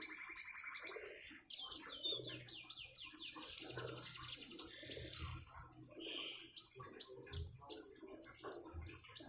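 A konin songbird singing a fast, busy song of sharp repeated chirps and rapid trills, with trickling water beneath it.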